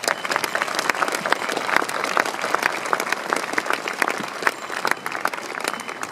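Crowd of spectators applauding: many hands clapping densely, thinning out near the end.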